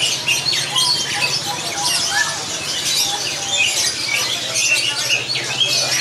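Many caged songbirds chirping and whistling at once, a dense chorus of short overlapping high calls, over a low steady hum.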